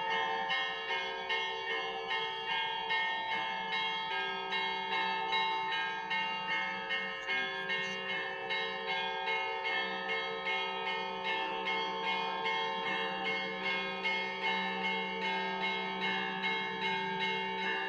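Russian Orthodox monastery bells ringing together: smaller bells struck in a quick, even rhythm of about two strokes a second over the lingering ring of larger bells.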